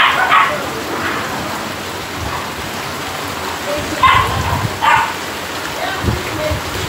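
Steady rain falling on rooftops and the ground, with a dog barking a few times, once near the start and twice about four to five seconds in.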